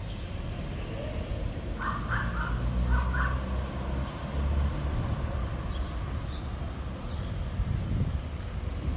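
A bird gives two short calls about two seconds in, over a steady low rumble.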